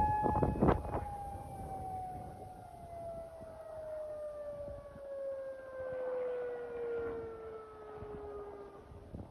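Mechanical outdoor warning siren, of the kind sounded for a tsunami warning. It holds one steady pitch, then winds down in a long, slow falling tone over about eight seconds until it fades out. A few knocks or bumps sound in the first second.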